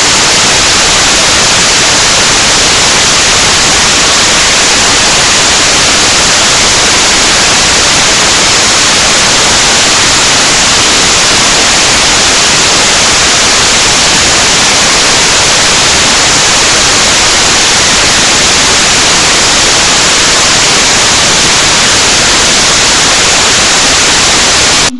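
Loud, steady static hiss, even in level throughout and strongest in the high range, that cuts off suddenly at the end.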